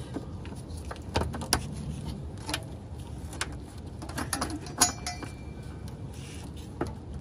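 Scattered sharp clicks and light knocks as the zip tie holding the oxygen sensor's wiring is cut and the wiring is handled. The loudest click comes about five seconds in, with a brief metallic ring after it.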